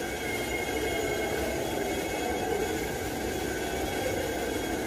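Power sander running steadily on body filler, a constant whirring hiss with a faint steady whine.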